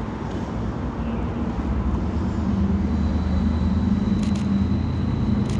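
Tram approaching along street tracks: a low humming rumble that grows louder, with a faint high electric whine joining about three seconds in. Two short clicks sound near the end.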